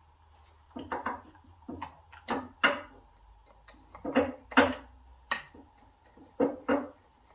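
A dozen or so irregular short clicks and knocks of hands working with tools and parts on the engine's ignition setup.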